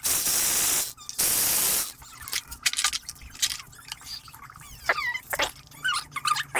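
Two even hissing spray bursts, each just under a second long, in the first two seconds, then scattered light clicks and short squeaky tones.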